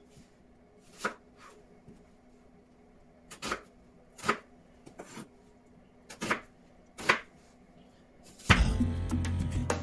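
Chef's knife slicing through a red onion onto a wooden cutting board: about five separate sharp knocks of the blade hitting the board, irregularly spaced. Background music comes in loudly near the end.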